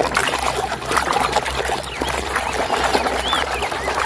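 Water splashing and dribbling with small knocks as muddy plastic toy cars are scrubbed by hand in a basin of water. Birds chirp several times in the second half.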